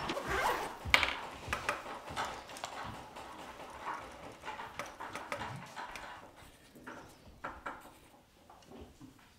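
Pencils scratching on paper and small irregular knocks against wooden school desks, growing fainter toward the end.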